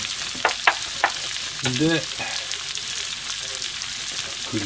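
Steady sizzling of oil and browned food scraps in a hot black iron frying pan on a gas burner, with a few sharp clicks and taps in the first second.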